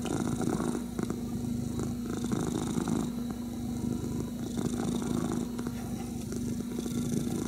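Domestic cat purring steadily right at the microphone while being scratched behind the ear, the purr swelling and easing with each breath in and out.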